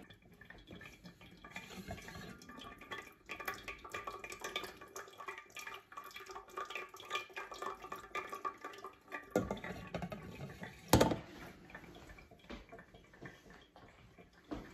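Water dripping through the coffee grounds of an aluminum dripolator: a faint, irregular patter of drops falling into the lower pot, with one sharp knock about eleven seconds in.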